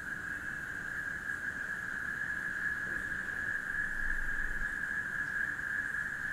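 Night chorus of crickets and frogs after rain: a steady, unbroken high-pitched calling that grows slightly louder partway through.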